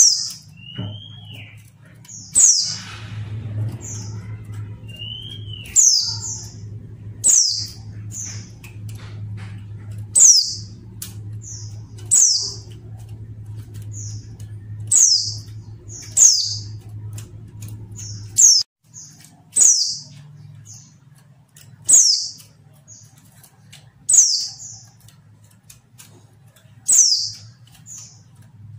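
Female white-eye (pleci) calling: a short, high, downward-sliding call repeated about every two seconds, each followed by a brief softer note. A steady low hum runs underneath and stops about two-thirds of the way through.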